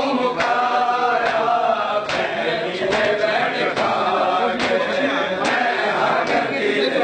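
A group of male mourners chanting a noha in unison, with sharp chest-beating slaps (matam) landing in a steady beat a little over once a second.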